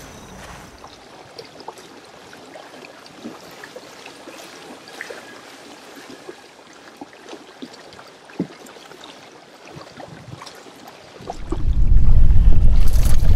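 Quiet water trickling and lapping with scattered small clicks and taps. Near the end, loud wind buffeting the microphone takes over.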